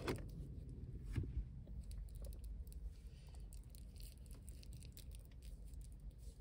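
Faint handling noises inside a car: scattered small clicks and crinkles, with a sharper click at the very start and another about a second in, over a low steady rumble.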